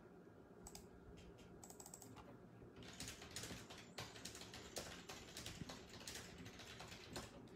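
Faint typing on a computer keyboard. A few scattered key clicks come first, then a quicker, denser run of keystrokes from about three seconds in.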